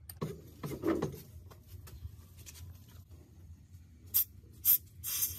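Gloved hands handling and turning the pulley of an old sewing machine head, scraping and knocking against the metal, with three short, sharp scratchy scrapes near the end.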